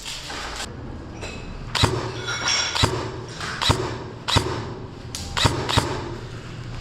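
Airsoft gun shots: about six sharp clacks at uneven intervals over roughly four seconds, over a low steady rustle.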